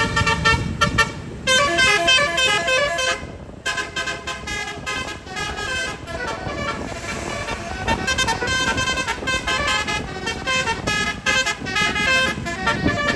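Tour bus telolet horn, a set of electric air trumpets, playing a fast tune of many short, stepping notes, with a brief pause about three and a half seconds in before the tune carries on.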